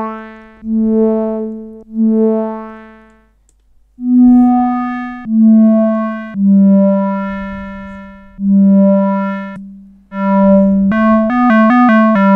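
LushOne analogue modular synthesizer playing single notes one after another. Each note starts sharply and fades out under the VCA's envelope, its brightness closing off as it decays. Near the end comes a quick run of short notes alternating between two pitches.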